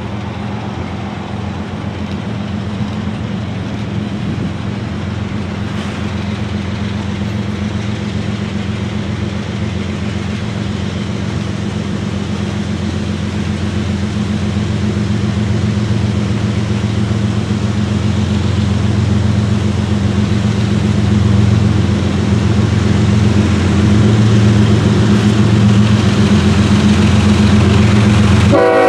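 Diesel locomotives leading a freight train approaching, their engines a steady low drone that grows gradually louder.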